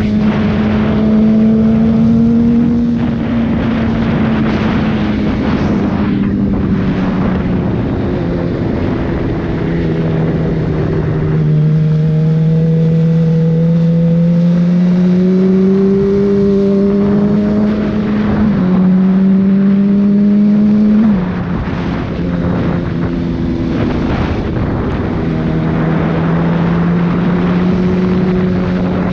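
Inline-four sport-bike engine heard onboard while riding, holding steady revs with slow rises and falls in pitch as the throttle changes, over a steady rush of wind. About two-thirds through, the engine note drops suddenly and goes quieter for a moment, then settles back.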